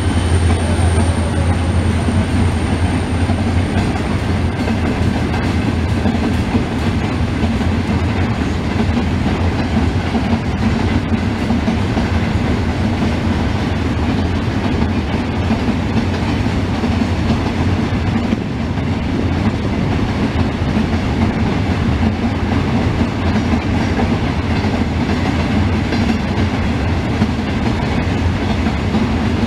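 A train of empty freight wagons rolling past on the track, a steady rumble of wheels on rail.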